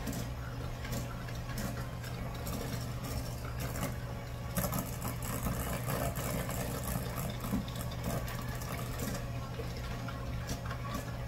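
Electric hand mixer running steadily, its beaters creaming butter and brown sugar in a stainless steel bowl: a constant motor hum with irregular clicking and scraping as the beaters strike the metal bowl.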